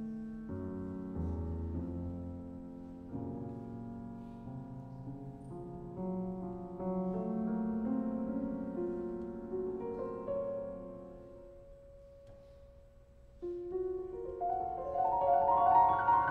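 Concert grand piano playing alone: chords and rising phrases that die away to a quiet pause about three-quarters of the way in, then a fast rising run that grows loud near the end.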